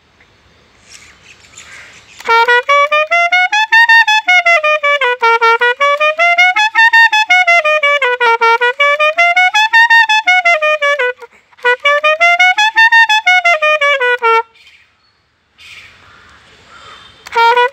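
Solo clarinet playing a melody that sweeps smoothly up and down in long waves, with quick fluttering ornaments on the notes. It plays two phrases split by a brief break a little after the middle, with quiet pauses holding faint breathy noise near the start and near the end.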